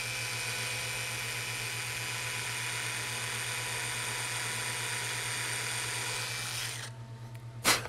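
Handheld cordless drill running steadily with a steady whine, a center drill boring a centered hole through the old trigger stud in the revolver's frame. The drill stops about a second before the end, followed by one sharp click.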